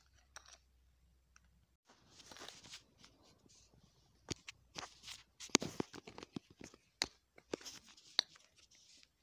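Handling noises: a short rustle about two seconds in, then a run of sharp clicks and knocks as perfume oil bottles are picked up and moved.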